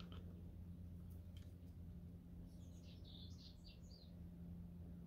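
Faint bird chirps, a quick series of short high notes about halfway through, over a low steady hum.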